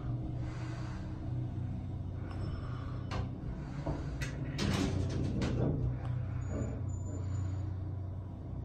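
Delaware hydraulic elevator car travelling upward, with a steady low hum from the hydraulic drive throughout. Several clicks and knocks come about three to five and a half seconds in.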